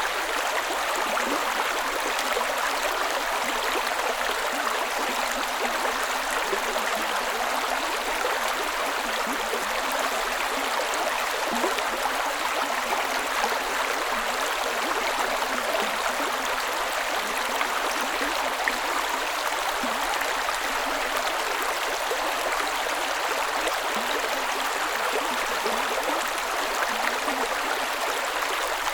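Creek water running steadily over stones, an even rushing with small gurgles and splashes throughout.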